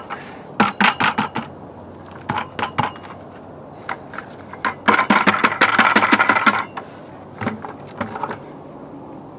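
Plastic five-gallon buckets being handled and set down on the floor: a series of knocks and clicks, with a longer clattering scrape about five seconds in.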